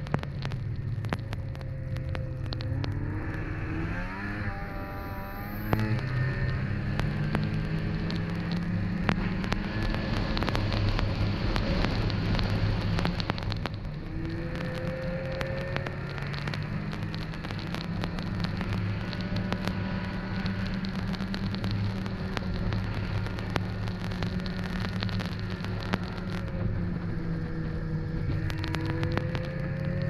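Snowmobile engine running under way, with a crackle of noise over it throughout. The engine's pitch climbs a few seconds in, drops suddenly near six seconds, then settles into steady running with another brief rise about halfway through.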